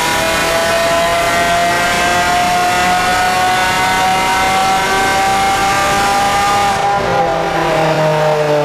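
Lamborghini Aventador LP700-4's V12 with an Fi aftermarket exhaust, pulling on a chassis dyno: the revs climb slowly and steadily for about seven seconds, then the engine comes off the throttle and the revs fall away near the end.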